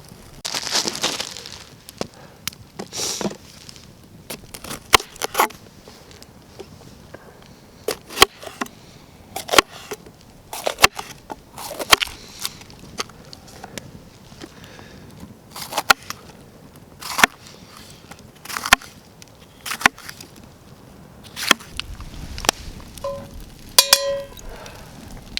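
Wood campfire crackling, with irregular sharp pops and snaps about once a second. A couple of brief squeaky tones come near the end.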